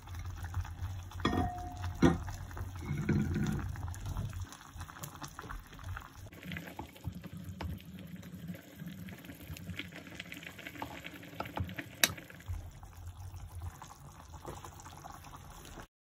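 Goat meat broth bubbling in a ceramic pot, with a few sharp knocks of a utensil against the pot, the loudest about twelve seconds in.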